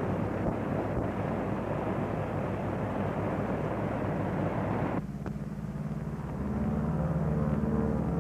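Four-engine piston aircraft running on a takeoff run, a dense steady engine roar on an old film soundtrack. About five seconds in it cuts off abruptly to a lower, steadier drone with held tones.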